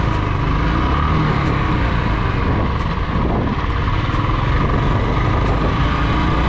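Royal Enfield Bullet motorcycle's single-cylinder engine running steadily on the move, mixed with heavy wind and road noise.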